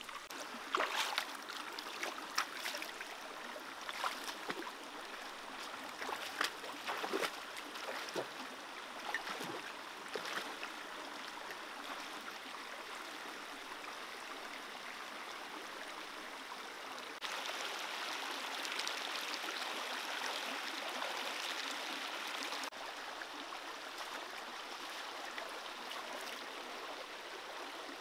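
Shallow stream running over rocks, a steady rushing. During the first ten seconds or so, a run of sharp splashes and knocks cuts through it; past the middle the rushing is louder for about five seconds.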